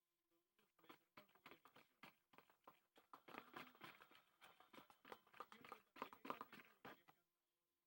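Faint, irregular clicks and rustling from handling the slime-making containers and ingredients.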